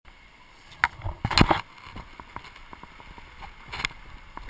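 Knocks and rattles of a camera being handled and bumped: a sharp knock just under a second in, a cluster of bumps around a second and a half in, and another knock near the end, with faint ticking and low background noise between.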